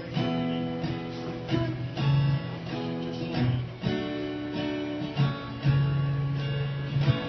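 Acoustic guitar being strummed, a new chord roughly every second, each left ringing.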